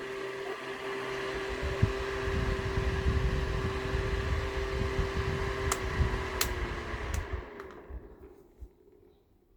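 Small battery-operated electric fan running, its motor giving a steady hum while its airflow buffets the microphone with a low rumble. There are a few sharp clicks, then the fan winds down and stops near the end.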